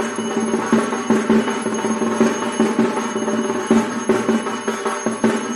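Bells ringing rapidly and continuously with drumming, the din of a puja aarti.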